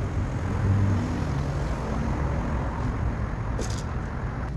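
Road traffic: cars driving past on a city street, a steady low rumble of engines and tyres that eases off toward the end.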